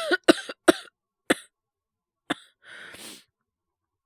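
A man coughing in a fit, about six quick coughs in the first second and a half and one more a second later, then a breath in. These are acted cold-symptom coughs.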